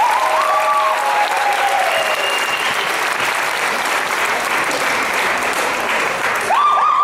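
Audience applauding, with a few cheers over the clapping and a burst of whoops near the end.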